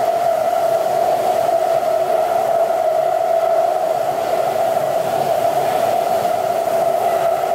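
Beijing Subway Line 14 train running, heard from inside the car: a steady hum with one constant tone, holding at an even level.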